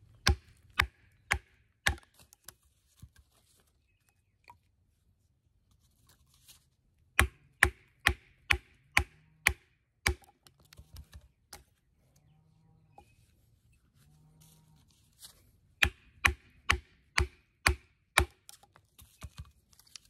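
Wooden baton knocking on the spine of a Magnacut-steel fixed-blade knife, driving it across the grain through a piece of oak. Sharp knocks come in runs of several strikes at about three a second, with pauses between the runs.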